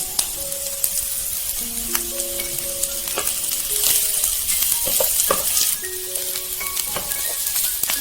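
Food frying and sizzling in a pan while it is stirred, with occasional clicks of the spoon against the pan. Background music with held melodic notes plays underneath.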